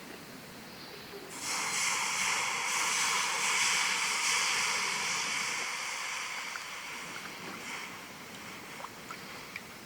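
Hot cookware sizzling: a hiss starts suddenly about a second in as food or liquid meets the hot metal, then slowly dies away, with a few faint ticks near the end.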